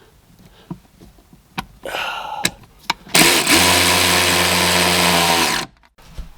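A few light clicks and knocks, then a power drill spins up and runs steadily for about two seconds before stopping, as the anchors for the cooler are put in.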